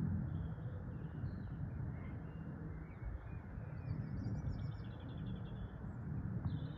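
Steady low rumble of an aircraft flying high overhead, with birds chirping and calling throughout.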